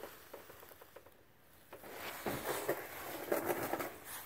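Faint scattered clicks, then from about two seconds in a louder stretch of rustling and scuffing with small clicks: handling noise from the camera and clothing as the person filming shifts under the truck.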